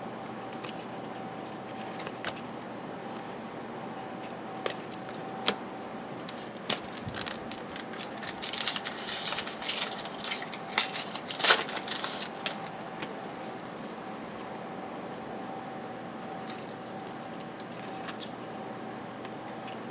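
Trading cards being handled: scattered light clicks and snaps, then a busier stretch of rustling and clicking about eight to thirteen seconds in, over a faint steady hum.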